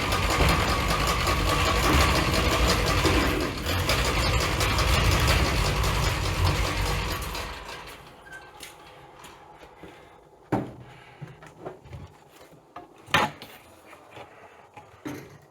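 Homemade bandsaw sawmill running steadily, then winding down and stopping about seven seconds in, followed by a few scattered knocks.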